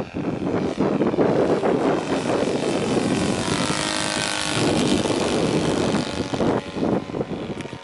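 Saito FG-57 four-stroke petrol engine and propeller of a large RC model RF-4 motor glider running, the sound fading near the end.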